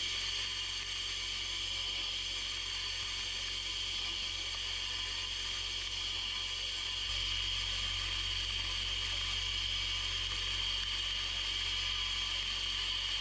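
Sandblast gun firing slag abrasive at a rusty steel hammer head inside a blast cabinet: a steady, unbroken hiss as the rust is stripped.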